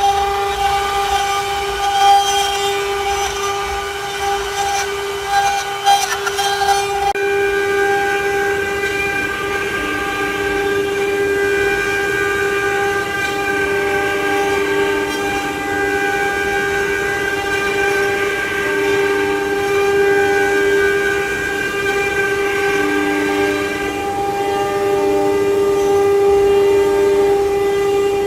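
CNC wood-carving router running: a steady high whine from the spindle, with shorter tones that switch on and off as the axis motors move. Scattered ticks sound for the first seven seconds or so, then stop as the tones shift.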